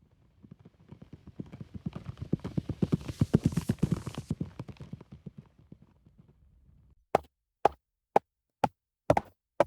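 A galloping horse passing by: rapid hoofbeats grow louder, peak in the middle and fade away. Then, about seven seconds in, sharp single clip-clop hoofbeats start on hard ground, about two a second.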